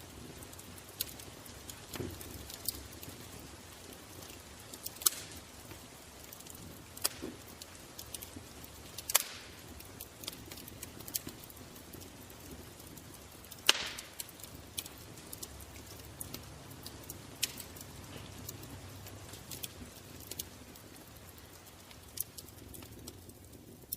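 Fire crackling: irregular sharp pops and snaps over a soft steady hiss, a few louder pops standing out.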